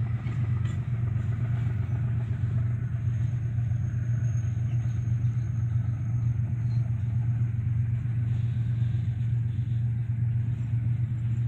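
Loaded freight train pulling slowly away up a grade: a steady low rumble of its diesel locomotives working hard and the wagons rolling on the rails. A faint, thin high tone sounds for a few seconds midway.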